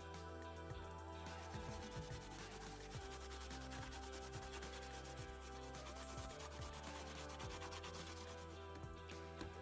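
Steel bicycle chain scrubbed rapidly back and forth with a Scotch-Brite pad on a rag, starting about a second in. This scours old rust deposits off the chain after a rinse.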